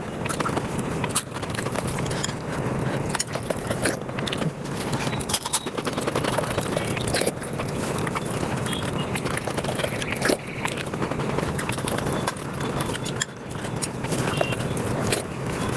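Eating sounds sped up five times: a rapid, unbroken stream of chewing and mouth smacks over wet rice and curry.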